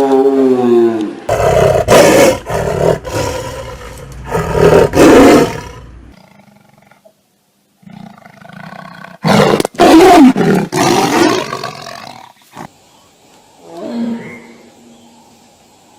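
Big cat roaring: a series of loud roars in the first six seconds, a short break, another loud roar about nine seconds in, and a fainter call near the end.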